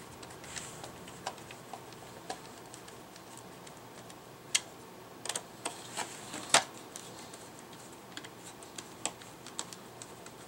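Small screwdriver turning screws into a Roomba 500's plastic housing: scattered light clicks and taps, with a few sharper ones around the middle.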